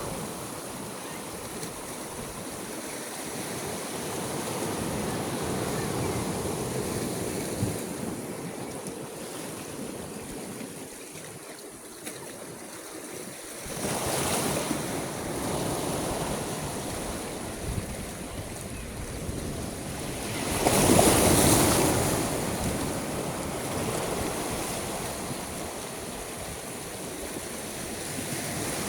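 Sea waves washing in, a steady hiss of surf that swells and ebbs, with a louder wave breaking about 14 seconds in and the loudest about 21 seconds in. Some wind rumble on the microphone.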